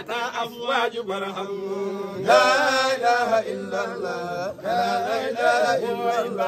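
Men chanting an Arabic devotional poem, the voices holding and bending long notes; the chant grows louder and fuller about two seconds in.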